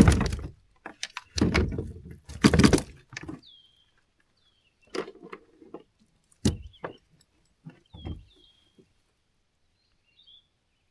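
Bumps, knocks and rustling from handling a catch in a kayak: three loud noisy bursts in the first three seconds, then scattered sharp knocks. A bird calls repeatedly in short, high, downward-sliding chirps.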